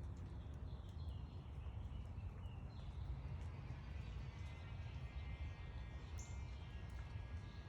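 Small backyard birds chirping and calling faintly over a steady low rumble of background noise, with one short high chirp about six seconds in.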